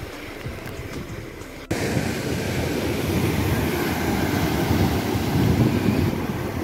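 Sea surf: small waves washing over sand, then, after a sudden jump in level about two seconds in, larger waves breaking and churning in foam against a rocky shore.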